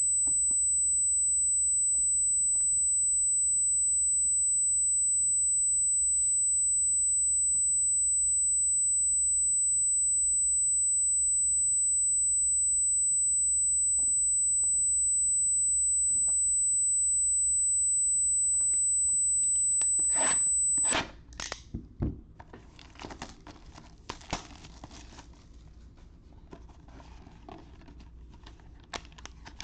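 A loud, steady high-pitched whine, an electronic fault in the recording's audio, cuts off suddenly about two-thirds of the way through. After it, foil trading-card packs crinkle as they are handled.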